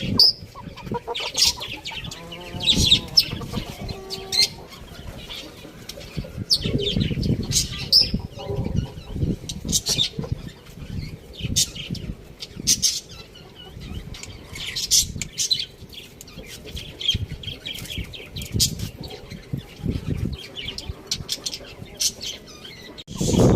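Chickens moving about, with irregular wing flapping and rustling and a few short clucks.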